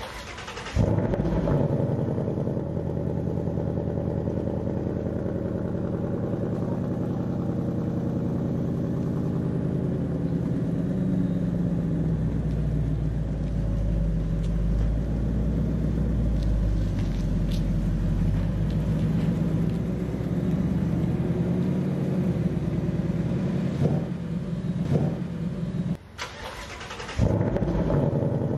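A 2020 Ford Mustang GT's 5.0L V8 starts about a second in and settles into a steady, deep idle rumble. Near the end the sound drops away for about a second and then comes back.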